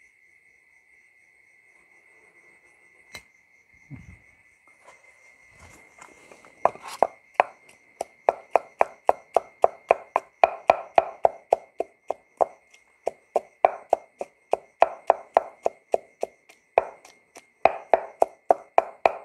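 A wooden pestle pounds raw shrimp and chilli in a stone mortar, making sharp, regular thuds at about two strokes a second. The pounding starts about six seconds in, working the shrimp into a sticky paste. Crickets keep up a steady high trill behind it.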